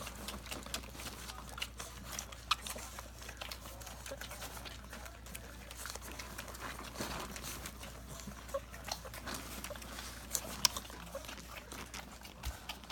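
A litter of puppies suckling from their standing mother dog: many quick, irregular wet smacking clicks, with a few louder ones.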